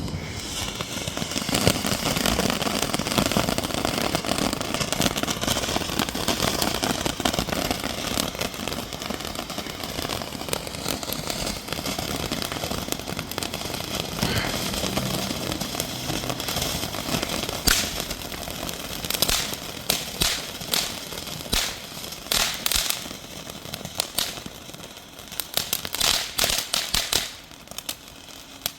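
Small consumer firework fountain burning: a steady spraying hiss for most of its run, turning into rapid clusters of crackling pops near the end.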